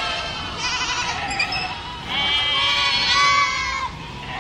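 Goats bleating: a shorter quavering bleat, then a long wavering bleat from about two seconds in that lasts nearly two seconds.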